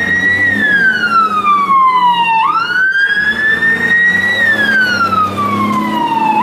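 Fire-truck siren wailing: a tone that climbs quickly, then sinks slowly over about two seconds before jumping up again, repeating about every four seconds.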